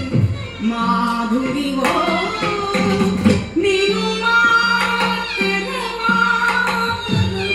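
Carnatic vocal music in raga Sarasangi. A woman sings with held, ornamented notes, a violin follows her line, and the mridangam adds occasional sharp strokes.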